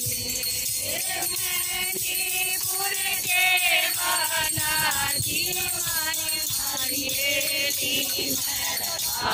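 A group of women singing a folk song together, with small hand cymbals or jingles keeping time.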